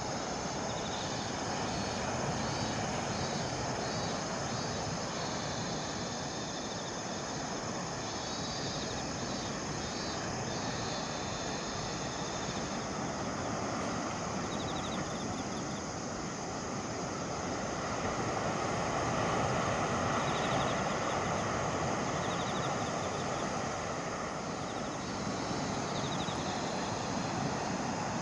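Steady rushing noise of wind and surf, swelling a little about two-thirds of the way through, with faint high chirping that comes and goes.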